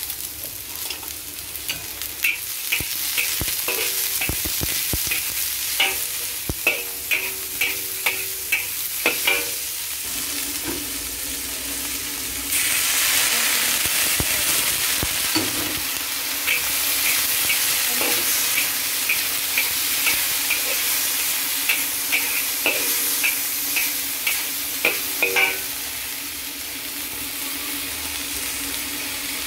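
Chopped string beans stir-frying in a black wok: a steady sizzle, with a metal spatula scraping and tapping against the wok in two long runs of quick strokes. The sizzle suddenly gets louder a little before the middle.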